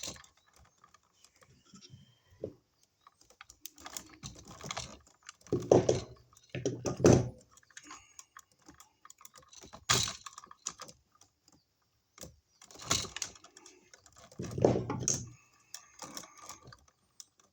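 Irregular clicks, taps and rustles of stiff electrical wires being handled and gathered together in a wall box, with a few louder scrapes and knocks spread through.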